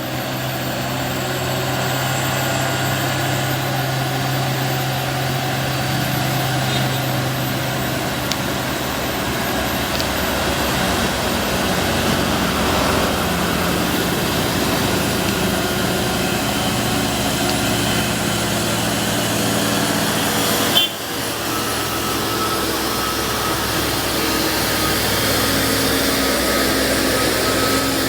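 Heavy truck diesel engine labouring up a steep climb, a steady drone with a brief sharp break about three quarters of the way through.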